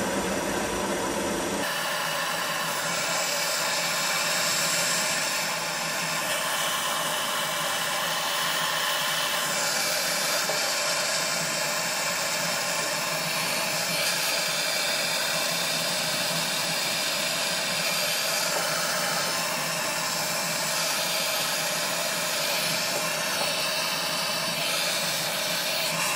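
MAPP gas hand torch burning with a steady hiss, its flame held on wood in a wood stove to light it.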